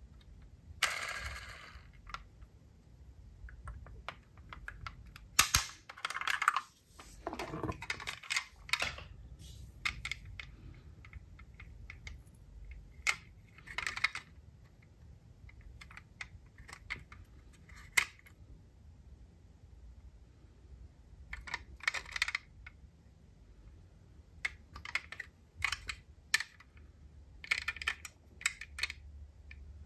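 Hands handling diecast model cars and their boxes: irregular clicks, taps and rustles of packaging, with one scrape that falls in pitch near the middle.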